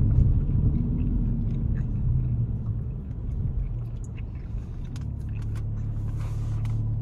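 Low rumble of engine and road noise inside the cabin of a 2012 Audi A7 driving in city traffic. A steady low hum settles in from about five seconds in.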